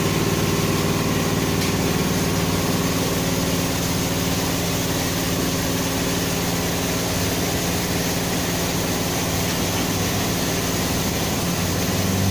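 A motor running steadily with a low hum and a constant hiss.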